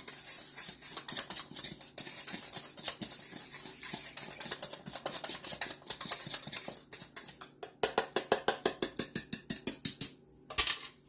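Small wire whisk beating mashed potatoes in a stainless steel saucepan: rapid, even clicking of the wires against the pot, several strokes a second. It stops near the end.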